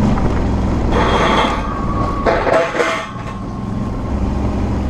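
Suzuki V-Strom 650's V-twin engine running on the move, heard from a camera mounted on the bike. Around two seconds in the engine note drops away briefly under a short mechanical rattle and squeal, then picks up again.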